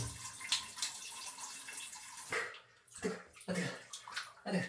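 Hot water sloshing and splashing in a bathtub as a person climbs into the bath. The splashing is steadier at first and then comes in a few separate short sloshes.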